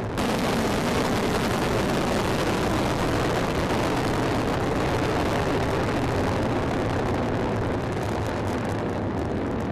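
Paektusan-1 rocket lifting off: the steady roar of its engine exhaust, a deep rumble through to hiss, unbroken and even in level.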